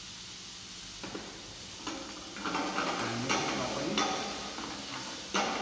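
Minced lamb sizzling in a stainless steel sauté pan on a gas flame, with a metal spoon scraping and clinking against the pan as it is stirred, the clinks starting about a second in and coming thick and irregular from about two and a half seconds.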